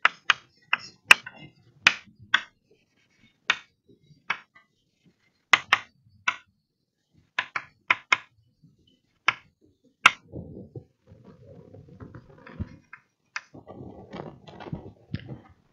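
Chalk on a blackboard: a string of sharp, irregular taps and clicks as words are written. After about ten seconds the taps stop and give way to soft shuffling and rustling of someone moving away from the board.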